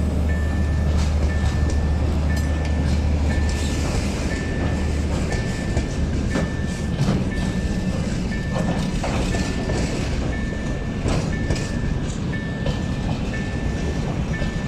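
Snowplough train wagons rolling slowly over a level crossing, their wheels knocking and clicking over the rail joints. Over it, the crossing's warning signal sounds a short high tone about once a second. A low hum stops about five seconds in.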